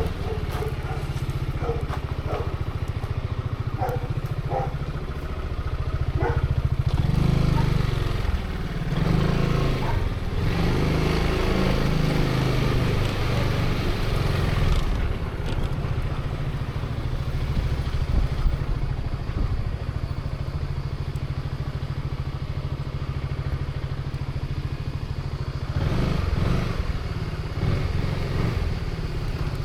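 A Zontes 350E maxi-scooter's single-cylinder engine running under way, the throttle opened and closed several times in the middle so the pitch rises and falls, then running steadily. A few sharp clicks or rattles come early on.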